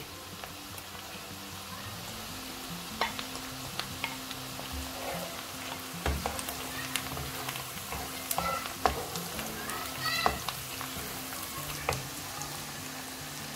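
Chopped onions sizzling in hot oil in a frying pan, with scattered taps and scrapes of a wooden spoon as garlic and ginger paste is stirred in.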